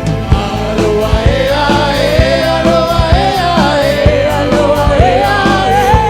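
A live party band playing a song with a singer's vocal line over drums, bass and keyboards, with steady drum beats throughout.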